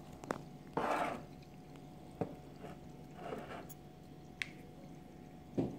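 Citro-Soda effervescent granules fizzing faintly in a glass of water, with a few sharp clicks and two short rustling bursts, about one second in and about three seconds in.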